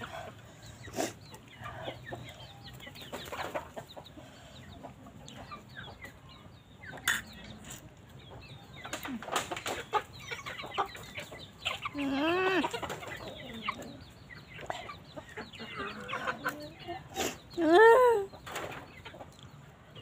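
Chickens clucking close by, with two louder, drawn-out squawks, one about twelve seconds in and one near the end, the second the loudest. A few sharp clicks in between.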